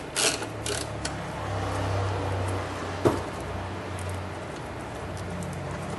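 A ratchet wrench clicks twice in the first second as it backs out the 13 mm battery hold-down bolt. A low steady hum follows, with one sharp click about halfway through.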